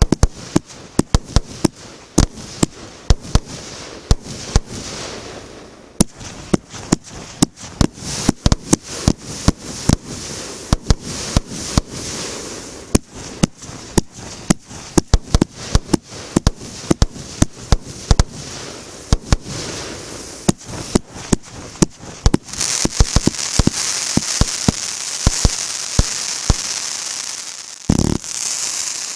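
Megapir 'Fiery Confetti' MB150 fireworks battery firing: a rapid, uneven series of sharp shots with crackling between them. About two-thirds of the way through, a dense continuous crackle fills in, with one heavy bang near the end.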